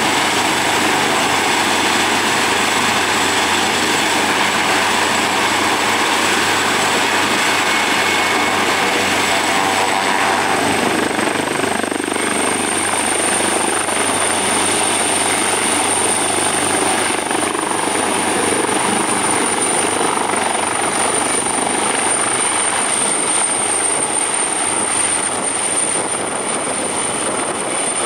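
AgustaWestland AW139 helicopter with its twin turboshaft engines and rotor running steadily. A high turbine whine rises slightly in pitch about a third of the way through and then holds.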